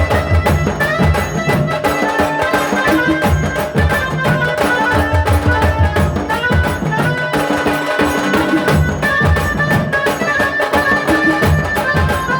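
Tasa drumming music: fast, dense strokes on tasa drums with a heavy low drum beat under them and a melody line stepping over the top.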